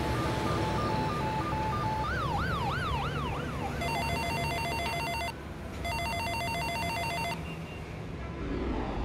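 A siren wails in the city background, its pitch swinging rapidly up and down. Then an electronic telephone rings twice, each ring a rapid trill about a second and a half long, over a steady low hum.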